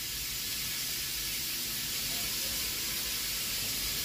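Pressure cooker venting steam in a steady hiss, releasing its pressure after cooking so it can be opened.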